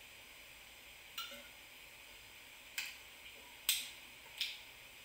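Four faint, sharp mouth clicks and lip smacks from someone tasting a sip of fizzy beer, spaced about a second apart.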